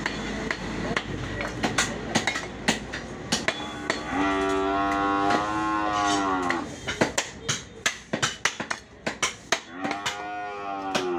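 Butcher's heavy knife chopping beef on a wooden block, an uneven run of sharp knocks. Two long, drawn-out calls that fall in pitch at the end come over it, about four seconds in and again near the end.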